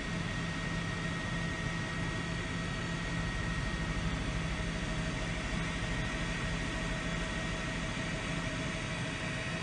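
Steady helicopter engine and rotor noise, a constant hum with a fast low throb, as heard from aboard the aircraft.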